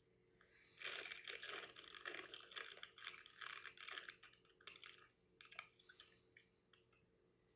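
Crunchy chewing of cheddar-flavored popcorn: a dense run of rapid crackling crunches starting about a second in, thinning to scattered crunches later.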